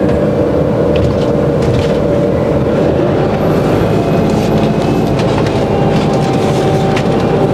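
Vehicle engine and road noise, a steady drone with a low rumble underneath.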